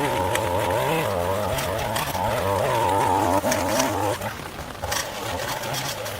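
Two-stroke string trimmer running at high revs, its pitch wavering up and down as it cuts, then easing off to a lower, quieter speed about four seconds in.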